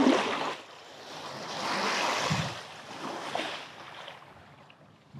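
Small surf waves washing up and sliding back on a sandy beach, rising and falling in a few swells, the biggest about two seconds in.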